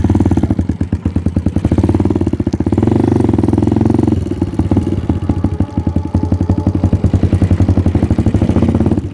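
Kawasaki KLX single-cylinder four-stroke dirt bike engine, oversized to 125 cc, running under throttle with its standard exhaust note. It pulls louder for a couple of seconds near the start, then eases back to a steadier run about four seconds in.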